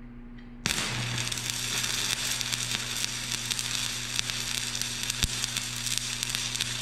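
Shielded metal arc (stick) welding with a 1/8-inch 7018 electrode: the arc strikes suddenly under a second in and then burns with a steady hiss and fine crackles, with a low hum underneath.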